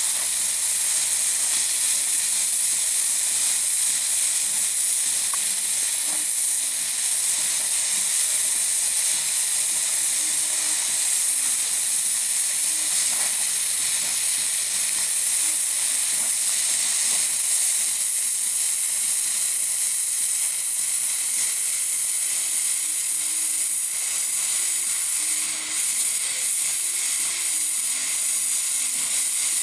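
Oxy-acetylene gas-welding torch flame hissing steadily on sheet steel, with a light sizzle from the weld puddle as filler rod is fed in. The hiss dips briefly about 25 seconds in.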